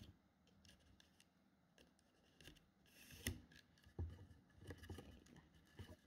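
Faint scraping and clicking of a thin rattan strand being tucked and pulled through a woven band on a bamboo tube. There is a sharper click a little past three seconds in and a few more small clicks near the end.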